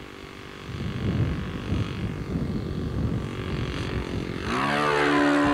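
Radio-controlled model airplane's two-stroke glow engine passing low and close. Wind rumbles on the microphone at first; then, about four and a half seconds in, the engine's pitched note swells in, rises briefly and holds steady.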